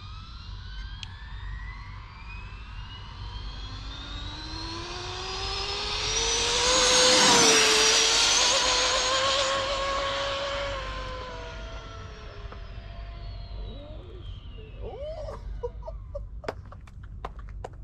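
Dual-motor brushless electric RC car on a top-speed run: a motor whine that climbs in pitch as it accelerates, loudest as it passes about seven seconds in, where the pitch dips, then fading away as it goes off.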